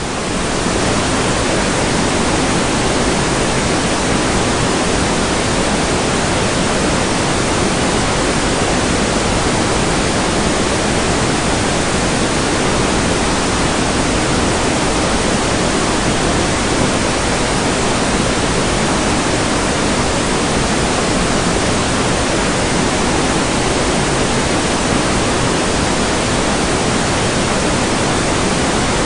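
Heavy monsoon rain: a loud, steady, even hiss with no single drops or other sounds standing out.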